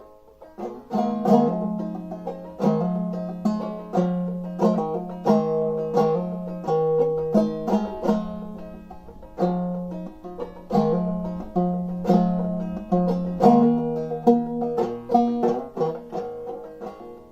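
An 1890s five-string banjo played clawhammer style in double C tuning, pitched lower than standard: a steady stream of brushed and plucked notes over ringing open strings, starting about a second in.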